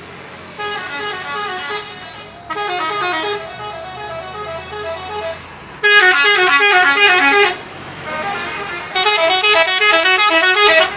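Multi-tone telolet bus horns on Harapan Jaya Scania coaches playing fast melodic tunes of quickly stepping notes. The tunes come in four bursts with short breaks between them, and the two later bursts are the loudest.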